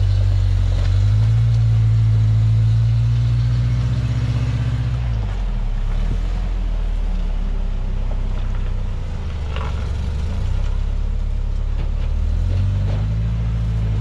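Toyota rock crawler's engine working under load as the truck climbs a steep rock ledge, revs rising about a second in, easing off around five seconds, and picking up again near the end.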